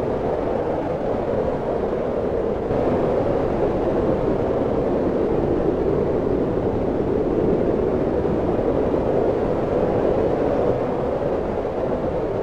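Wind blowing steadily, a continuous rushing noise that swells a little about three seconds in and eases again near the end.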